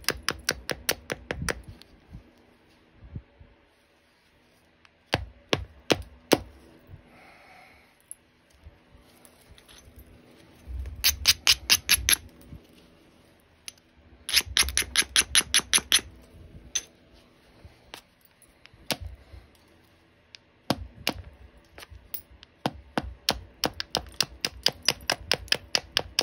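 Copper-tipped knapping tool scraping and tapping along the edge of an opalite preform, cleaning up and abrading the platform edges. It is heard as several runs of rapid clicks, each a second or two long, with scattered single ticks between.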